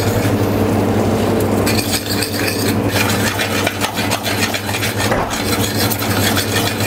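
A metal spoon stirring and scraping crab meat in brown butter in a small stainless steel saucepan, with light clinks of the spoon against the pan. The scraping gets busier about two seconds in, over a steady low hum.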